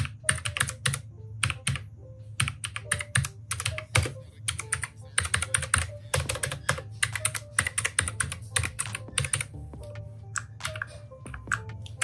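Ant Esports MK3400 V3 Pro mechanical keyboard with clicky Outemu Blue switches being typed on, fast runs of sharp key clicks with short pauses between them.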